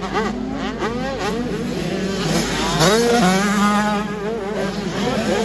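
Several motocross bikes racing. Their engines overlap in a buzzing whine whose pitch keeps rising and falling with the throttle. About halfway through, one bike rises in pitch and holds a steady high note, the loudest moment.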